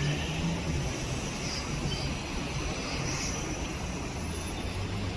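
Steady low rumble of slow-moving city street traffic, with engine hum.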